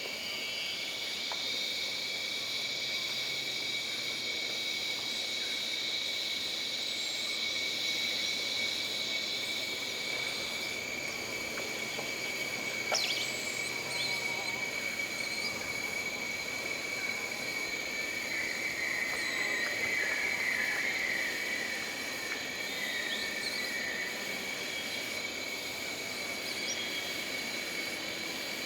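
Jungle ambience dominated by steady insect drones, one higher insect chorus dropping out about a third of the way in. There is a single sharp click about halfway, and a brief pulsing trill a few seconds later.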